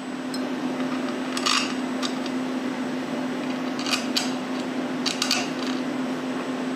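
Light metallic clinks and taps as machined aluminium cylinder heads are handled on a CNC machine's fixture plate, a few scattered strikes with two close pairs about four and five seconds in, over a steady machine hum.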